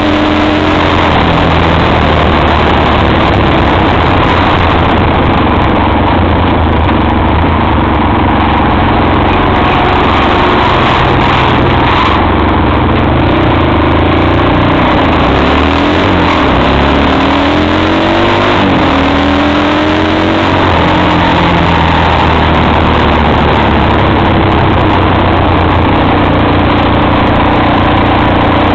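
XY250STXE quad's 250 cc engine running steadily under way, its pitch falling and rising several times around the middle as the throttle is eased and opened again.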